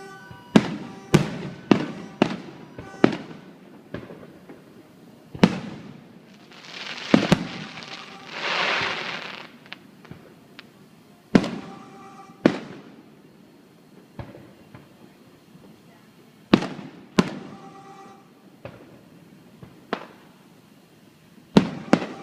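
Neighborhood fireworks going off: about a dozen sharp bangs, spread unevenly and some in quick pairs, each trailing an echo. Around a third of the way in comes a few seconds of dense crackling.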